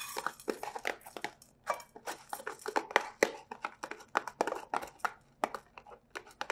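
Soaked brown rice being scraped out of a plastic container with a plastic rice paddle and dropping into a rice cooker's inner pot: an irregular run of light clicks and scrapes, several a second.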